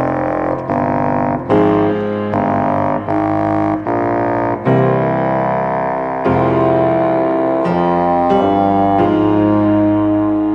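Instrumental music: a line of separate notes over the first few seconds, then longer held notes from about five seconds in.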